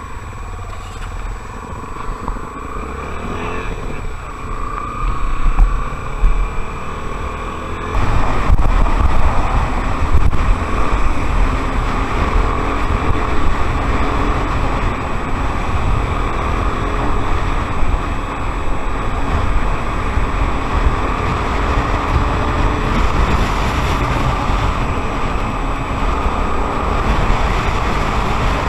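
Honda XR 250 Tornado motorcycle's single-cylinder four-stroke engine running under way, its pitch rising and falling through the gears. About eight seconds in, a louder steady rush of noise with heavy low rumble sets in as the bike rides on.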